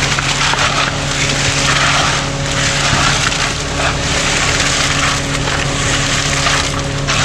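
An engine running steadily under continuous gritty scraping and crunching that swells and dips, the sounds of concrete being placed and worked with machinery running.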